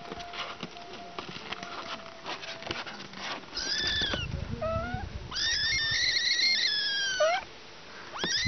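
Kittens mewing: a few short, high mews about three and a half seconds in, then one long drawn-out mew that ends about two thirds of the way through. Light clicks and taps come before the mews.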